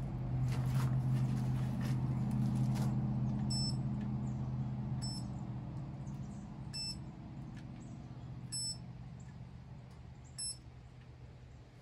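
Stove blower fan humming steadily and slowly fading out. About five short, high beeps come at intervals of a second and a half to two seconds from an infrared thermometer taking temperature readings off the stove.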